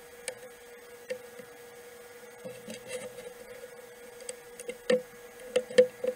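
Light clicks and knocks of thin scroll-sawn wooden letters being handled and set down on a board, with a few louder knocks near the end, over a steady hum.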